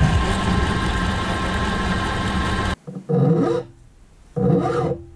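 Milling machine running as it cuts a 4140 chromoly steel bar, a steady machine noise that stops abruptly after about two and a half seconds. Two shorter sounds from hand work at a bench vise follow, about a second apart.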